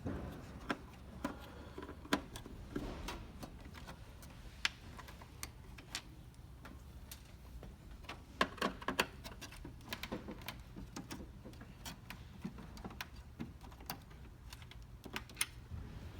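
Hand screwdriver turning out the screws that hold a plastic ice maker lid: irregular small clicks and ticks of the tool bit and screws against the plastic housing, with a faint low hum underneath.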